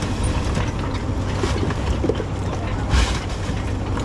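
Fishing boat's engine running steadily, with scattered knocks and a brief louder burst of noise about three seconds in.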